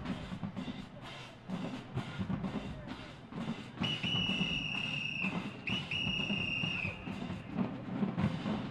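Marching band drumline beating a steady rhythm, cut through by two long, steady whistle blasts about four and six seconds in.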